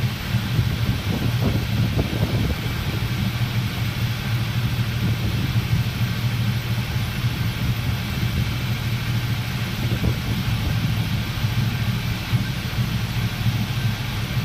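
Engine idling steadily, with a few faint knocks over it.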